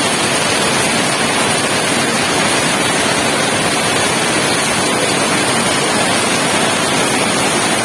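Steady rain falling in a yard: a dense, even hiss with no breaks.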